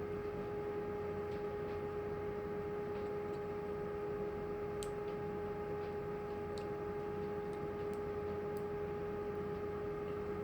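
A steady electrical hum at one constant pitch, with a few faint, scattered metallic ticks as a thin curved cylinder shim is worked into the back of a lock cylinder.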